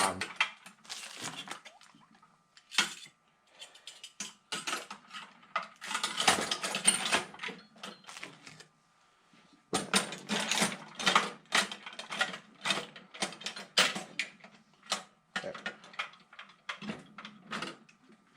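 Metal hand tools (wrenches and sockets) clinking and clattering in a tool chest drawer as they are handled, in uneven runs of sharp clicks with a short pause partway through.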